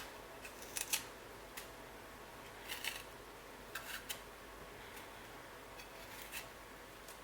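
Short, sharp clicks and scrapes of hand food preparation as debris is cleaned off a piece of fresh ginger root: a few irregular strokes, some in quick pairs, over a faint steady hum.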